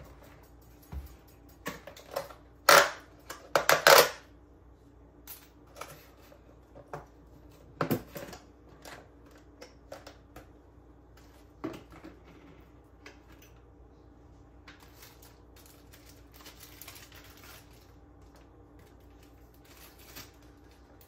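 Clicking and clattering of a metal fork against clear plastic containers and bags as cut fruit is portioned out, with a loud burst of clatter about three to four seconds in, sharper knocks near eight and twelve seconds, then lighter scattered clicks.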